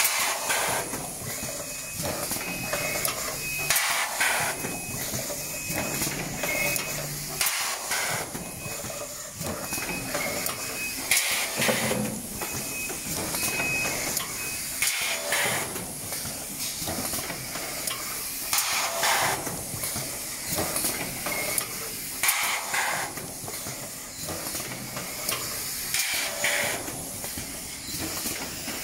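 ST-400A silkscreen gluing box assembly machine running steadily, its pneumatic cylinders letting out a sharp hiss of compressed air about every three to four seconds over the continuous mechanical running noise.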